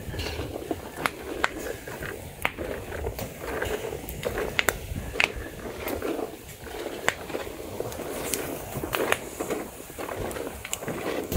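Raw cashew nuts burning in their shells in a perforated metal pan over a wood fire: the shells have caught fire, which is the stage when they must be stirred. The flames rush steadily, with irregular sharp pops and crackles, a few a second.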